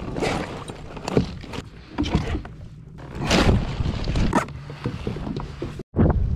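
Irregular knocks and water splashes around a fishing kayak at sea, over a low rumble.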